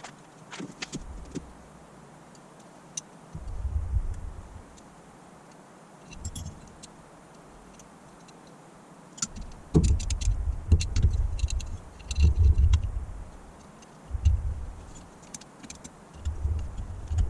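Small metal carburettor parts and tools clicking and clinking on a workbench during reassembly, with intermittent low thumps from handling.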